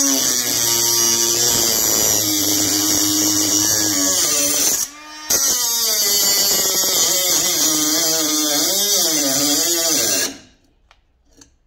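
Milwaukee M12 FUEL 3-inch compact cut-off tool running in reverse, its abrasive wheel grinding into a metal square tube with a steady high whine. It cuts out briefly about five seconds in and starts again. Its pitch wavers under load near the end, and it stops about ten seconds in.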